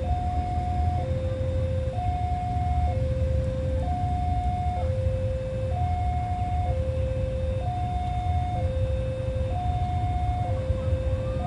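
Railway level-crossing warning alarm sounding a two-tone electronic hi-lo signal, the higher and lower tones alternating about once a second over a steady low rumble. It signals that a train is approaching the crossing.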